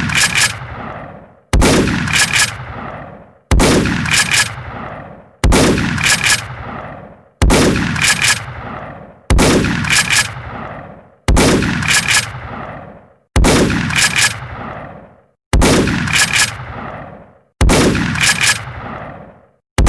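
Shotgun firing, one shot about every two seconds, about ten times. Each shot is a sharp blast followed closely by two more sharp cracks, then a rumbling tail that fades over a second or so.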